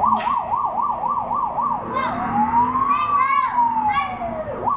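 Electronic toy siren of a children's play fire truck: a fast warbling yelp for about two seconds, then one slow rise and fall. Children's voices call out over it.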